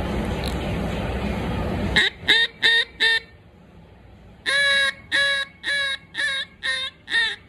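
Duck call with a bois d'arc (osage orange) insert being test-blown during tuning. Four quick quacks, a short pause, then a longer note followed by five shorter quacks at an even pace, the start of a hail or greeting series. A steady rushing noise fills the first two seconds before the calling.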